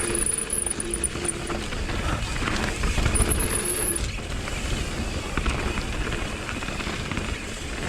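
Mountain bike descending a dirt downhill trail: a steady rumble and rattle of tyres and bike over rough ground. Twice there is a brief high-pitched squeal from the disc brakes (Galfer Shark 203 mm rotors with MTX pads and Hope V4 calipers), once at the start and once about three seconds in.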